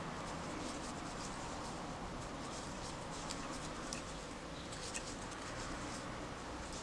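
Faint scratching and rustling of a crochet hook working cotton string, with small irregular ticks over a steady background hiss.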